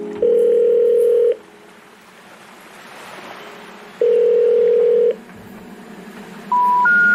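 Telephone call tones: a steady ringback beep sounds twice, about a second each, then three short beeps rise in pitch near the end, the special information tone of a call that cannot be connected.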